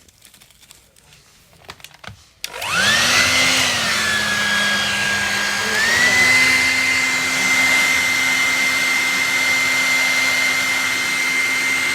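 Hair dryer switched on about two and a half seconds in: its motor whine rises, sags slightly, then climbs again around six seconds in and runs steadily with rushing air. A few light clicks and handling noises before it starts.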